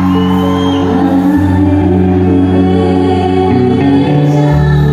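Amplified live band music with singing: long held chords over a bass line that shifts to a new note every second or so.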